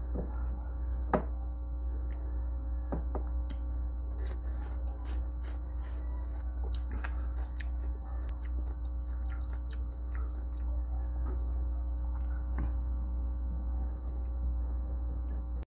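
Close-miked biting and chewing of raw kamias (bilimbi) fruit: a run of short wet clicks and crunches, with one sharp, loud bite about a second in, over a steady low hum.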